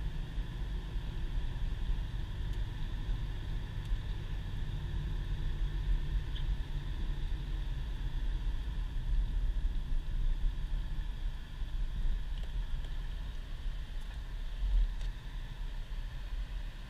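Steady low rumble inside the cabin of a 2010 Subaru Impreza driving on a snow-covered road: its flat-four engine running and its tyres on the packed snow, with a faint hiss above.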